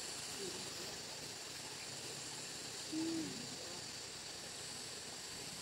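Outdoor rural ambience: a steady high-pitched insect drone, with a few short low calls over it, the loudest a brief falling call about three seconds in.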